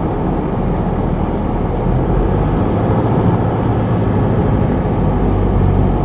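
Steady road and engine noise of a car driving along a sealed road, heard from inside the cabin.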